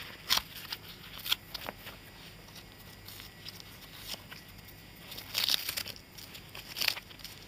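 Hands handling stiff leather and paper strips, making short crisp crinkles and rustles. There are a few sharp ones in the first second or so and a longer bout of rustling about two-thirds through.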